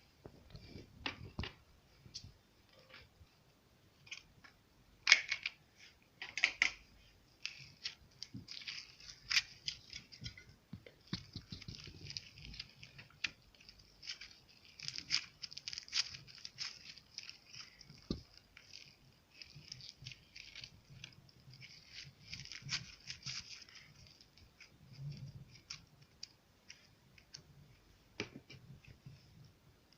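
Slime being kneaded and stretched by hand: irregular sticky clicks, pops and crackles, thickest through the middle, with one sharp snap about five seconds in.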